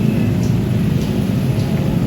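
Loud, steady low rumble of a vehicle passing at close range, with a few faint, short high squeaks.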